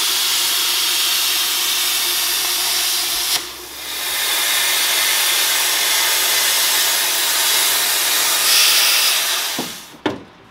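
Plasma cutter hissing steadily as it cuts through a steel shock tower. It stops briefly about three and a half seconds in, resumes, and cuts off shortly before the end, followed by a short knock.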